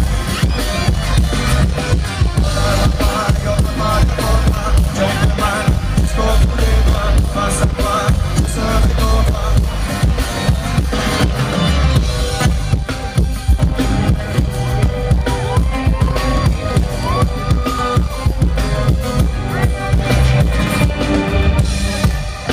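Live pop band playing an instrumental break over a concert PA: a steady drum-kit beat with heavy bass under acoustic guitar and keyboard, picked up by a phone in the crowd.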